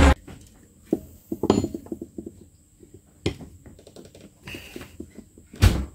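Scattered metallic clicks and taps of hand tools working on a dismantled SU HD8 carburettor, with a louder thump near the end.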